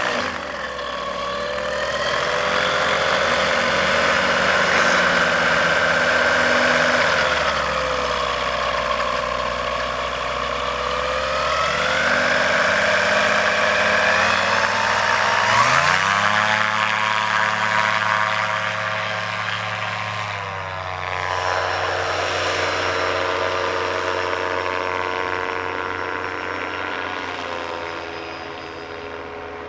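Suzuki G13BB four-cylinder car engine on an Eagle ultralight trike, driving its pusher propeller. The revs rise and fall several times, climb sharply to a high steady power about halfway through, then drop to a lower, slowly falling drone as the trike flies.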